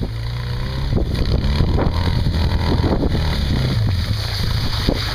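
Off-road buggy engine running as the buggy drives through snow toward the microphone, growing louder as it comes close.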